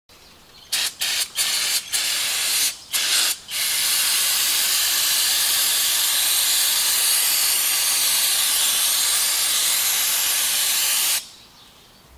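Aerosol can of brake parts cleaner spraying: a quick series of short bursts, then one long steady spray of about seven seconds that cuts off sharply near the end.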